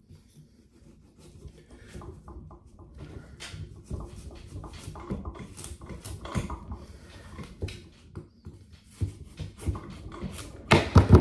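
A kitchen knife cutting through a whole watermelon's very thick rind: an irregular run of crackling crunches and scrapes as the blade works in. A louder burst of crunches comes near the end as the cut goes through.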